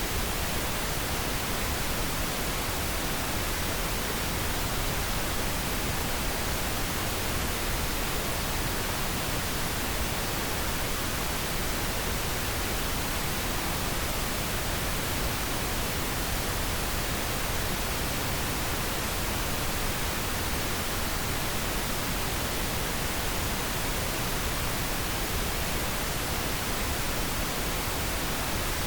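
Pink noise: a steady, even hiss with no change.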